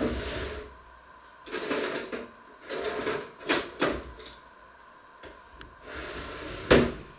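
Kitchen clatter from things being handled: a string of irregular scrapes and rattles with sharp knocks about three and a half and four seconds in, and the loudest knock near the end.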